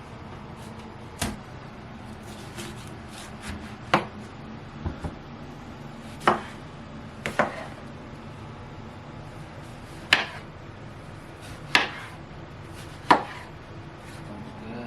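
Knife chopping on a cutting board: single sharp knocks spaced irregularly, one to three seconds apart, about ten in all, over a faint steady low hum.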